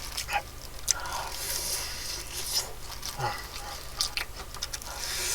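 Close-up chewing and crunching of crispy fried chicken, with scattered sharp crackles and wet mouth sounds.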